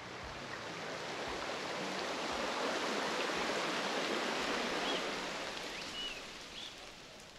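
Water of a forest stream running over rocks, a steady rushing that swells up over the first couple of seconds and fades away toward the end. A few faint, short high chirps come through in the second half.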